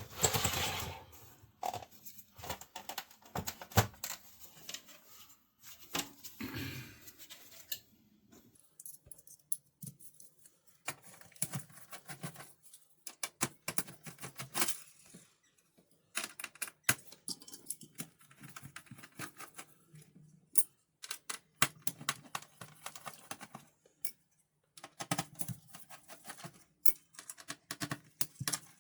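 Irregular hard-plastic clicks and rattles from an HP SK-2502C keyboard being handled and taken apart by hand, in short clusters with brief pauses.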